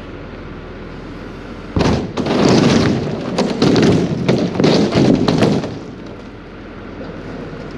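Loader engine running steadily. About two seconds in comes a run of loud crashes and bangs lasting about four seconds, then it eases back to the engine alone.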